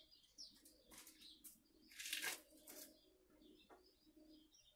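Near silence with scattered faint, short bird chirps, and a brief rustle about two seconds in.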